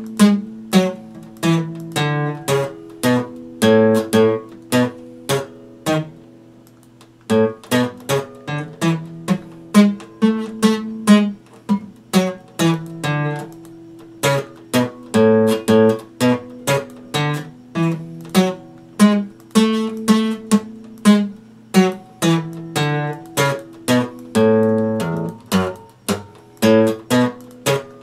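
Epiphone acoustic guitar strummed in a steady rhythm, about two strokes a second, with the chords ringing on between strokes. The strumming stops for a little over a second about six seconds in, letting the sound die away, then picks up again.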